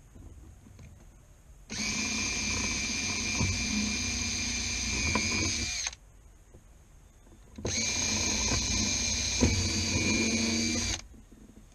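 Cordless drill running in two steady runs, one of about four seconds and one of about three and a half seconds with a short pause between, its bit working into a wooden panel. Each run keeps an even, high whine.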